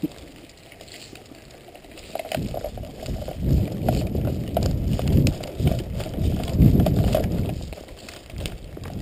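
Footsteps of a person running over wet, leaf-covered forest ground, with the chest- or head-mounted action camera jostling and rubbing at each stride. The running starts about two seconds in.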